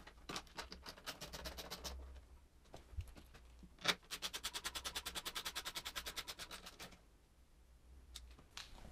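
Hand ratchet clicking as the exhaust mounting bolts are tightened: a few scattered clicks first, then, about four seconds in, a run of rapid, even clicks, about ten a second, for nearly three seconds.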